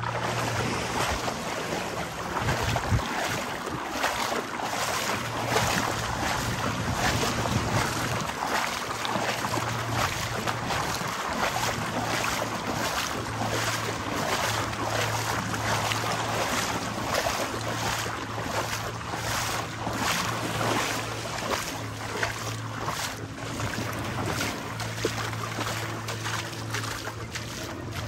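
Boat engine running with a steady low drone that fades and returns in stretches, over a continuous rush of waves and wind on the microphone.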